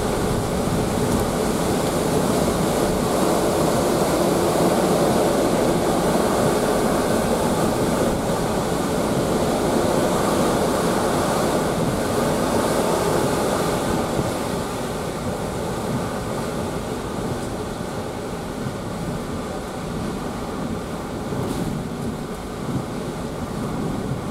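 Hurricane wind and heavy rain buffeting a vehicle, heard from inside it: a steady, dense roar that eases slightly about halfway through.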